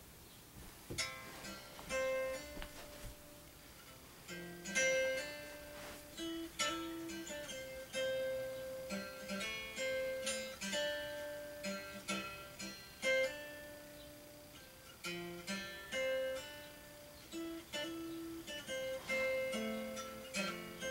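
Acoustic guitar playing a slow picked melody of single notes and light chords, each note fading before the next.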